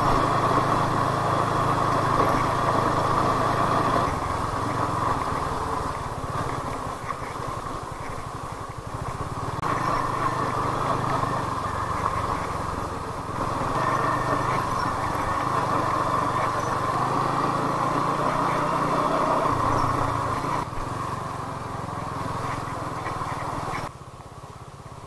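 TVS Apache RTR 200's single-cylinder engine running as the motorcycle is ridden, heard over steady rushing noise. It gets louder and quieter in turn every few seconds and drops away abruptly near the end.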